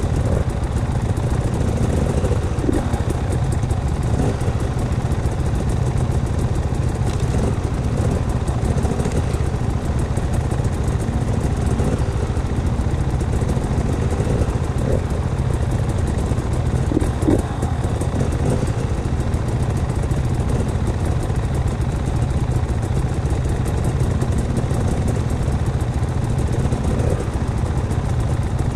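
An off-road vehicle's engine idling steadily while stopped: a low, even rumble.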